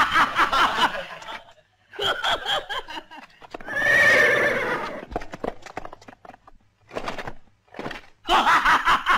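Horses whinnying several times, the longest and loudest about four seconds in, followed by a run of hoof clops.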